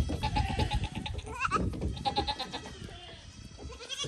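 Goats' hooves knocking and drumming on the hull of an upturned small boat as they jump about on it, with several goat bleats, one rising sharply about one and a half seconds in.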